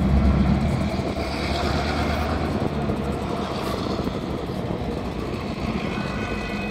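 Road traffic rumbling past the crossing; about six seconds in, the electronic railroad crossing bell starts ringing as the warning lights activate.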